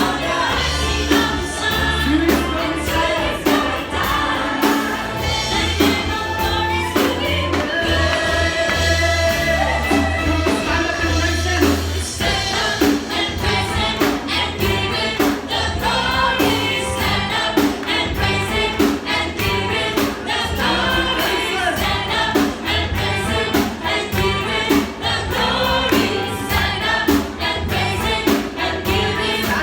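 Live worship music: a group sings a gospel song over a band with bass and a steady drum beat.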